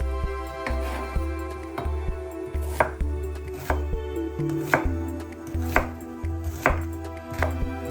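Kitchen knife chopping on a cutting board in sharp single strikes, roughly one a second, over soft background music.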